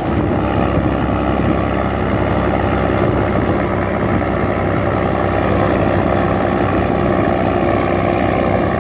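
Mercedes-Benz 1113 truck's inline-six diesel engine idling steadily.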